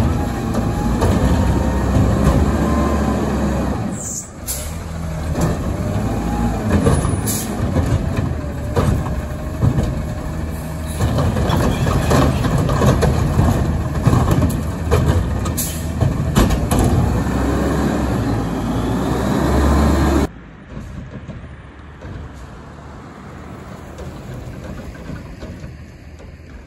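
McNeilus Meridian front-loader garbage truck on an Autocar ACX chassis running hard to drive its hydraulics while its Curotto-Can arm tips a recycling cart and sets it back down, with a wavering whine and several sharp clanks. About twenty seconds in, the sound drops suddenly to a quieter, distant truck.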